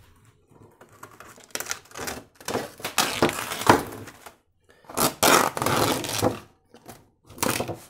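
Painted canvas being ripped away from its thin wooden stretcher frame in a long tearing pull that starts about a second and a half in. A few seconds later the loose painted sheet rustles and crackles as it is handled and folded over.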